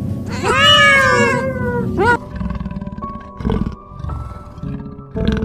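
A cat gives one long meow that rises then falls. It is followed by background music with two short, low, rough sounds.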